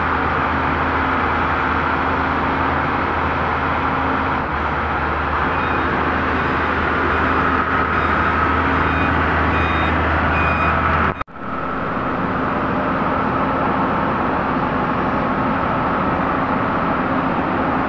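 Excavator's diesel engine running steadily with a deep hum, and a faint beeping alarm repeating for a few seconds in the middle. About two-thirds of the way through the sound cuts out abruptly and a similar steady engine drone carries on, without the deep hum.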